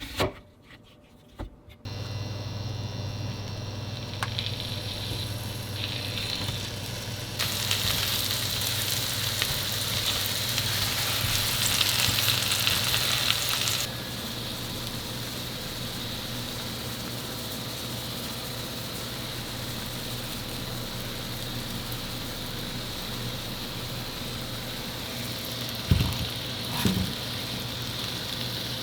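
Food sizzling as it cooks, over a steady low hum. The sizzle swells louder and brighter from about seven seconds in for some six seconds, then settles back. A couple of light knocks come near the end.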